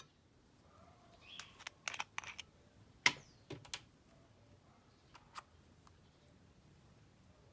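Slime being worked by hand: a cluster of sticky clicks and pops, the loudest about three seconds in, then a couple of fainter ones.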